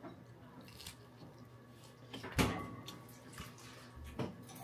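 A few scattered knocks and thumps as a man gets up from a chair at a table and moves off, the loudest one about two and a half seconds in.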